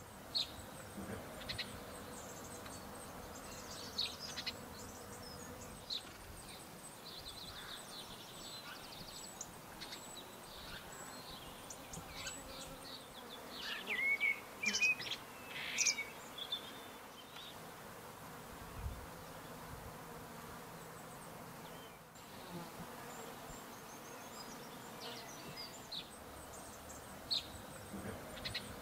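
Outdoor spring garden sound: birds singing in short chirps, trills and gliding notes, busiest about halfway through, over a faint steady buzz of insects.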